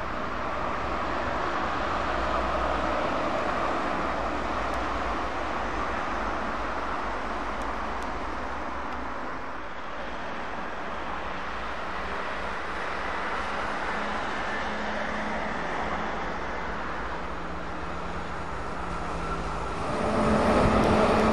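Road traffic passing: diesel trucks, a bus and cars going by with steady tyre and engine noise. Near the end a louder, closer heavy truck comes in with a steady engine hum.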